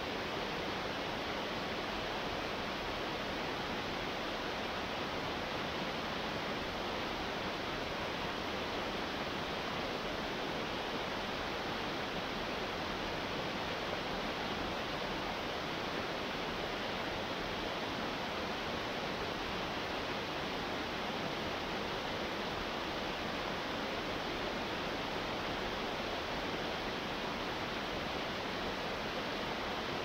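Cascading waterfall pouring over rocks, a steady, unbroken rush of falling water.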